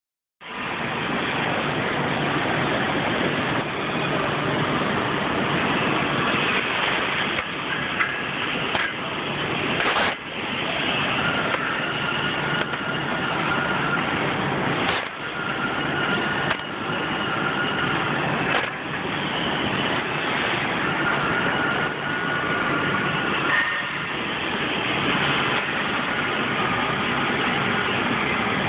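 Laser cutting machine running: a steady rushing noise, with brief whining tones that come and go and a few short clicks.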